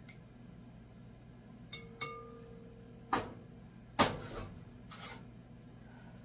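Kitchen handling sounds: two light taps against a glass stand-mixer bowl, the bowl ringing briefly, then two louder knocks about a second apart, the second the loudest, and a softer one after. A low steady hum sits underneath.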